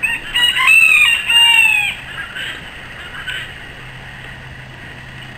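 A rooster crowing once: one call of about two seconds that holds its pitch and then drops off at the end. A faint steady low hum runs underneath.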